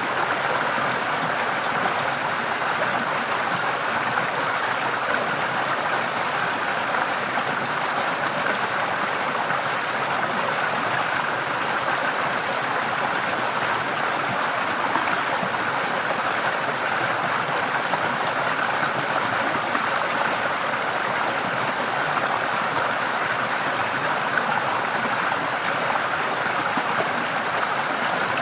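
Water in a forest stream flowing steadily, a constant rushing splash without change.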